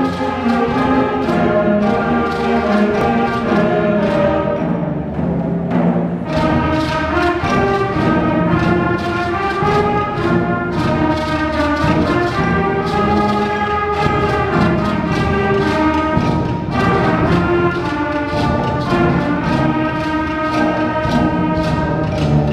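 A school concert band playing: woodwinds, brass and tubas hold chords over a steady beat of drum strikes. The drums drop back briefly about five seconds in, then return.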